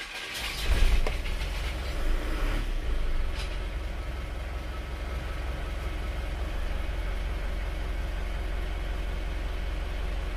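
Isuzu Panther's diesel engine started cold, catching about a second in and settling into a steady idle after a couple of seconds, heard from inside the cabin. The engine has just been rebuilt with new piston rings and seals.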